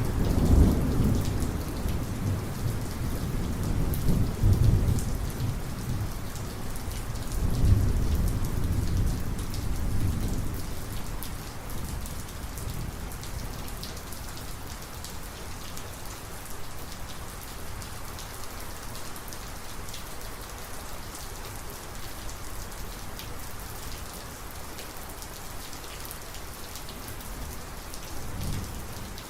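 Thunderstorm: heavy rain falling steadily, with rolling thunder rumbling through the first ten seconds or so. The thunder dies away to rain alone, and a faint low rumble comes back near the end.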